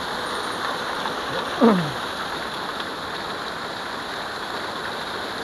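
Steady rush of water pouring through a concrete pond spillway. About a second and a half in, one short, loud sound slides down in pitch.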